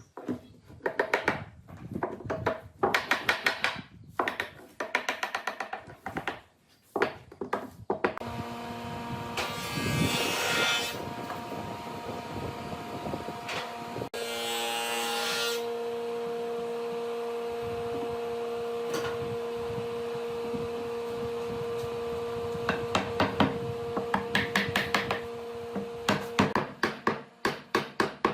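Woodworking shop sounds: rapid runs of sharp knocks on wood, then a small electric power tool running steadily for about twenty seconds with two louder grinding stretches, then knocking again near the end.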